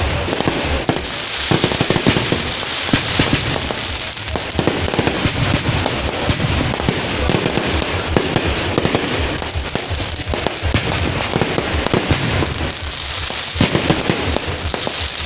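Fireworks going off in a continuous barrage: many sharp bangs and crackles in quick, irregular succession as aerial shells burst.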